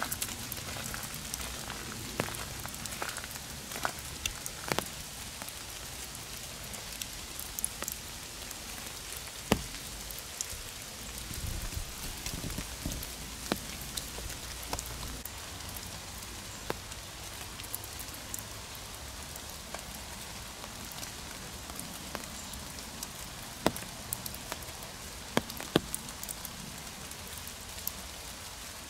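Steady rain falling in a forest, with many single louder drops landing close by as sharp ticks scattered through the patter.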